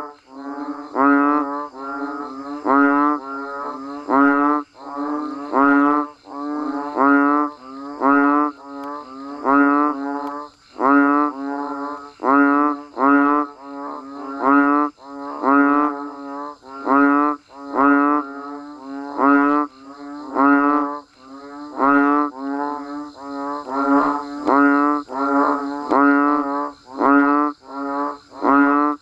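A chorus of banded bullfrogs (Asian painted frogs) calling: short, low, pulsing calls, one after another about every second and overlapping, over a faint steady high hiss.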